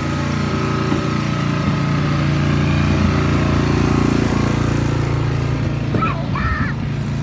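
Snow blower's small gasoline engine running steadily and loudly, swelling a little louder around the middle.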